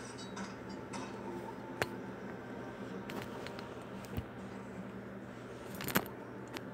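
Handling noise from a phone being moved about: a few sharp clicks and a soft thump, the loudest click near the end, over a steady low hum.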